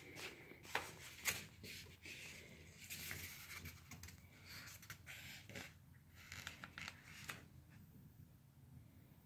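Faint scraping and rustling, with a few sharp clicks, the loudest two close together about a second in. It dies down to quiet room tone in the last two seconds.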